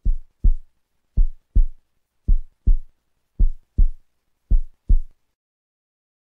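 Heartbeat sound effect: five low double thumps, about one a second, stopping just after five seconds in.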